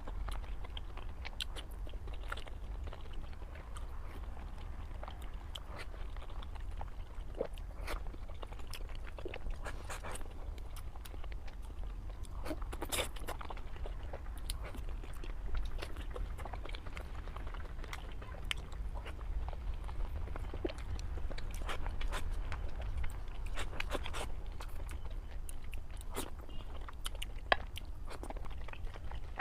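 Close-miked mouth sounds of eating pork with its skin: chewing, wet smacks and crisp crunches coming in irregular clicks, over a low steady hum.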